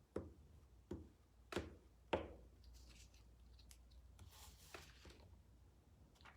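Glue stick and paper being worked on a tabletop: four soft knocks in the first two seconds, then a longer, papery rustle.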